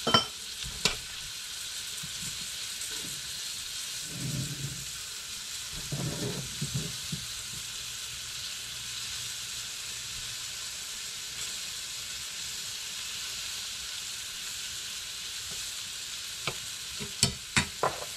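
Breaded pike pieces sizzling in hot butter in a frying pan, a steady hiss. Sharp clicks of a fork against the pan come just after the start and again several times near the end as the pieces are stirred and turned.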